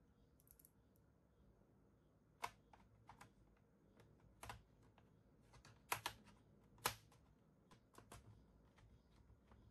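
Faint, irregular small clicks and taps of a screwdriver and screws on an Acer Aspire 3 laptop's plastic bottom case as the back-cover screws are taken out, with a few sharper clicks about six and seven seconds in.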